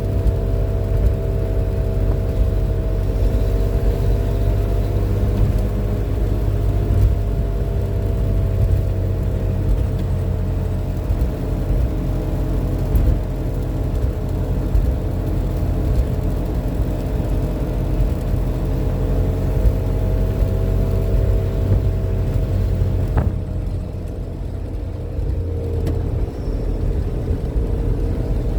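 MG Midget's engine running steadily at cruise with road rumble, heard inside the closed cabin. About 23 seconds in there is a click, and the engine note then eases lower and quieter.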